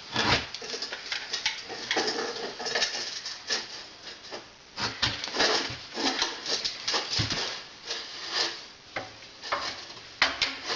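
Irregular knocking, scraping and clicking of parts being handled and fitted, with a few sharper knocks among the smaller scuffs.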